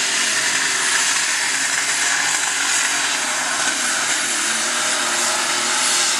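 Super stock pulling tractor's turbocharged diesel engine running flat out under load, loud and steady, with a high turbo whine held over it.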